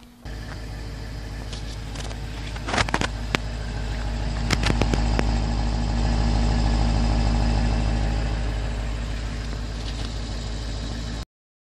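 BMW 550i xDrive's 4.4-litre twin-turbo V8 idling steadily at its exhaust tips. There are a few sharp clicks about three and five seconds in. The sound cuts off suddenly near the end.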